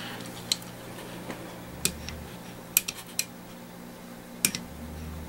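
Light metallic clicks and clinks, about half a dozen at irregular moments, from the steel parts of a Ruger Mark IV pistol's trigger assembly and a small Allen key being handled while the sear adjustment screw gets a final small turn. A faint steady hum lies under them.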